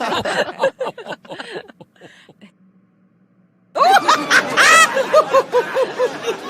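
Two separate recorded laughs: the first trails off about two and a half seconds in, and after a short pause a second laugh starts with a high-pitched squeal and goes on in rhythmic "ha ha" pulses.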